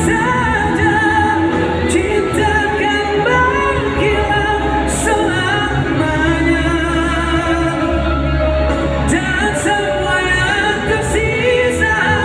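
A live pop band playing, with singing over drums, bass and guitars, heard loud and continuous from the audience in a concert hall.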